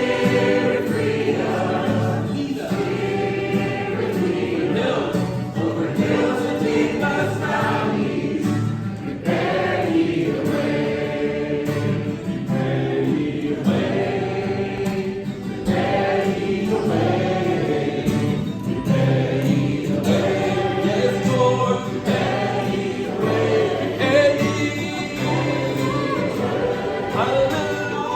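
Choir singing a Christian worship song with musical accompaniment.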